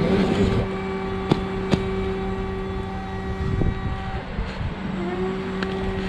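Steady mechanical hum from an enclosed car-carrier truck as its rear hydraulic liftgate ramp is lowered. There are two sharp clicks a little over a second in and a slight shift in pitch about five seconds in.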